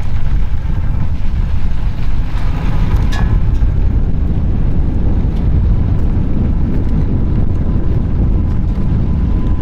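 Steady low rumble of wind on the microphone and the ENGWE M20 e-bike's 20 x 4.0 fat tyres rolling over rough, dry grass at about 22 km/h. A faint steady whine joins in about halfway through.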